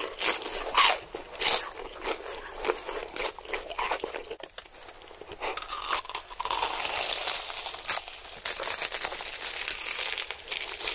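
Close-miked bites into crispy crumb-coated cheese corn dogs: a few loud, sharp crunches in the first second and a half, then a dense stretch of crunchy chewing from about six seconds in.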